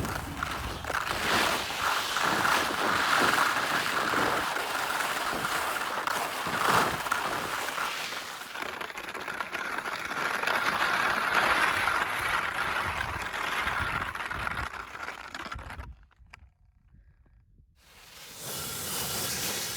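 Skis scraping and hissing over icy snow through a run of turns, swelling and fading with each turn; the sound drops out for a couple of seconds near the end before picking up again.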